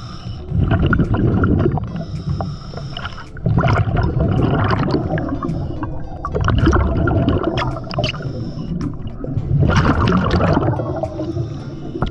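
Scuba diver breathing through a regulator underwater: four bursts of bubbling exhaust, each a second or two long, alternating with the shorter, steady hiss of inhaling.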